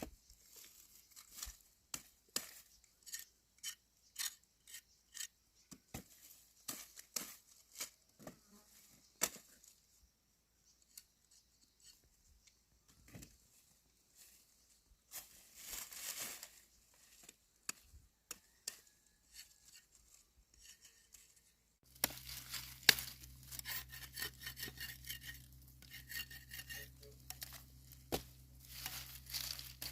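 Irregular sharp clicks and scrapes of hand work with a tool. About two-thirds of the way through, a low steady hum starts and the scraping becomes denser and busier.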